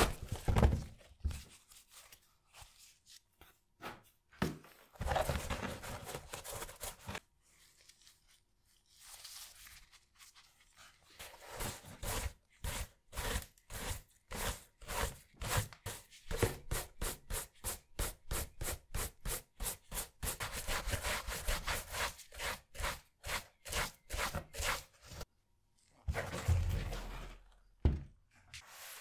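A brush scrubbing a muddy sneaker back and forth. Scattered rubs and knocks come first, then from about twelve seconds in a steady run of strokes at about three to four a second, and a dull thump near the end.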